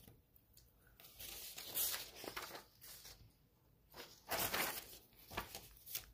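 Loose sheets of printer paper rustling as a stack of printed pages is picked up and leafed through: a few separate rustles, the loudest about two seconds in and again about four and a half seconds in.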